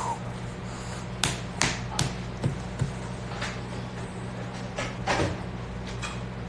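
Scattered light taps and knocks, about half a dozen short ones over a few seconds, over a steady low hum.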